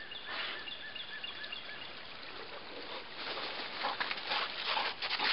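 Creek water running high and trickling, with a quick series of short, thin high chirps in the first second or so and a louder rustling crackle over the last couple of seconds.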